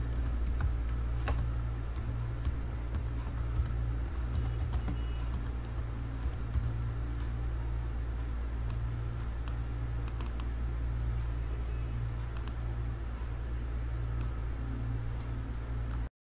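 Computer keyboard typing: scattered keystrokes and a few clicks over a steady low hum. The sound cuts off suddenly near the end.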